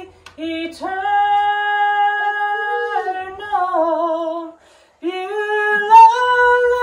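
A woman singing a gospel song solo. She holds long sustained notes, pauses briefly for breath about four and a half seconds in, then slides up into another long held note.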